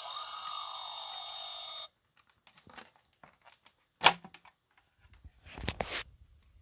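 Toy's built-in electronic laser sound effect playing from its small speaker for about two seconds: a ringing tone with falling sweeps. A sharp plastic click about four seconds in, then handling rustle near the end as the magnet-held body panel is pulled off.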